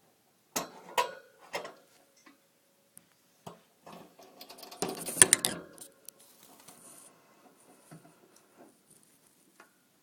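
Pet hamster drinking from a water bottle, making irregular clicks and taps on the bottle's spout. The clicks come a few at a time early on, bunch into a dense loud flurry about five seconds in, then thin out to faint scattered ticks.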